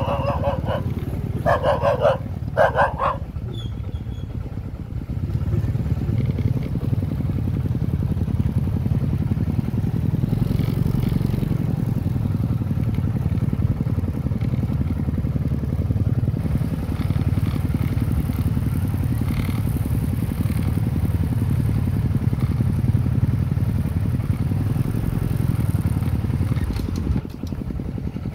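Motorcycle engine running steadily at low revs, with a few short shouts in the first three seconds.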